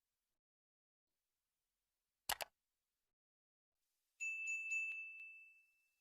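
A sharp double click, like a camera shutter, then about four seconds in a bright, high ding with a few quick ticks that rings out and fades over about a second and a half.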